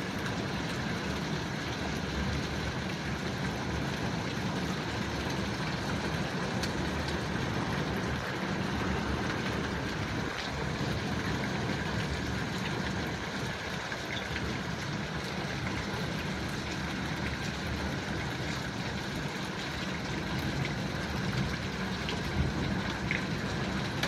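Small hailstones and rain falling hard on a car's roof and windscreen, a steady dense patter heard from inside the car, with a low steady hum beneath.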